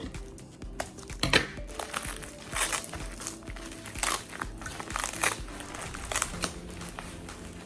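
Packaging crinkling and rustling in irregular bursts as it is handled and unwrapped, over background music.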